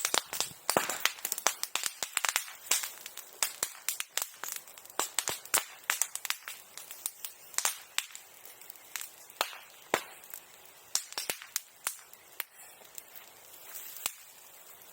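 Bonfire of old silkworm-rearing tools crackling, with dense, irregular sharp pops, several a second, some as loud as firecrackers.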